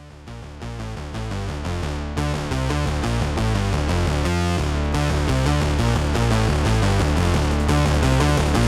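Electronic background music with a steady beat and synthesizer notes, fading in from silence over the first couple of seconds.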